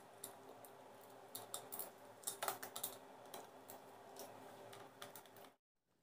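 Faint, scattered plastic clicks and taps of a switchboard plate being handled and pressed onto its wall box. The sound cuts off suddenly near the end.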